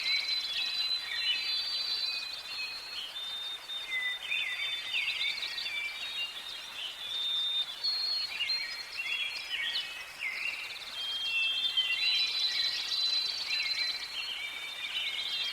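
Several songbirds singing and calling over one another in a dense forest chorus of high whistles and quick trills, busiest at the start and again about twelve seconds in.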